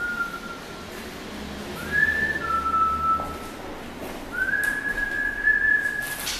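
A person whistling a slow tune of long, steady notes that fall in pairs, then one longer held note from about four seconds in. A short hiss or rustle comes just before the end.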